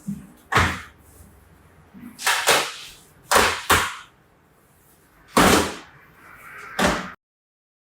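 Unboxing an electric bike: a series of short, sharp scraping and rustling noises from the cardboard box and its packaging, about seven in all, some in quick pairs. The sound cuts off abruptly into silence near the end.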